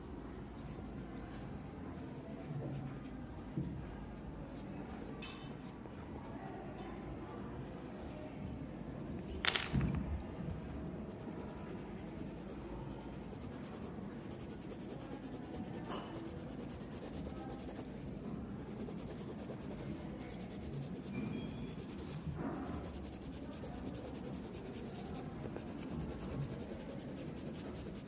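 Coloured pencil scratching and rubbing on paper during shading, with a few light clicks and one sharper click about a third of the way in.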